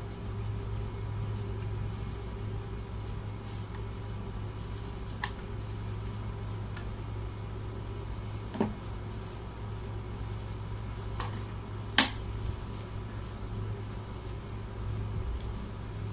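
Steady low hum under a few sharp clicks and knocks as a V800 sound card and its cable plugs are handled, the loudest click about three-quarters of the way through.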